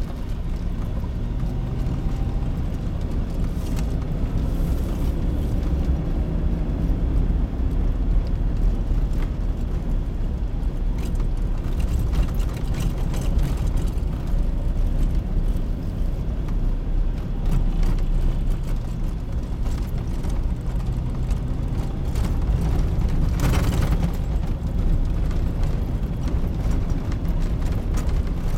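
Car interior road noise while driving on a snow-packed road: a steady low rumble of engine and tyres. A brief burst of noise comes about three-quarters of the way through.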